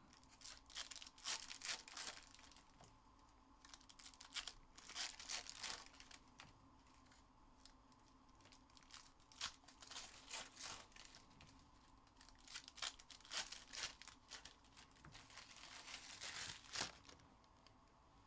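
Faint tearing and crinkling of trading-card pack wrappers being opened, in several short bursts of rustling with quiet pauses between.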